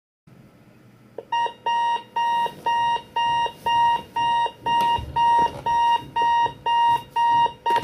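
Digital alarm clock beeping: short, evenly repeated electronic beeps of one pitch, about two a second, starting just over a second in after a faint click.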